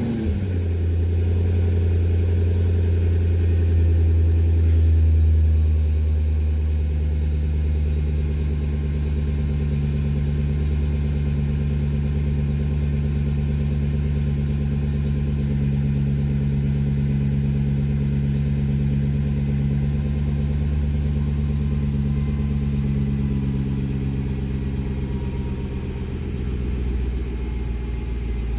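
2004 Jaguar XKR's supercharged 4.2-litre V8 idling just after a restart, slightly higher for the first few seconds, then settling into a steady, even idle. It runs smoothly, no longer rough, now that the intake hose that had come off the throttle body and let in unmetered air is clamped back on.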